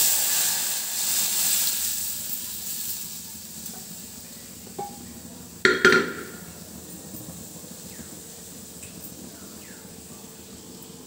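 Boiled dal poured into a kadai of hot tempering oil with spices and onion, sizzling loudly at first and dying down over about four seconds as the oil cools under the liquid. A little under halfway through come two sharp knocks close together.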